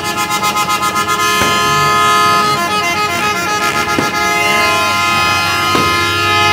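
Several horns blowing steady tones together, with sharp firework bangs about a second and a half in, at about four seconds and near the end.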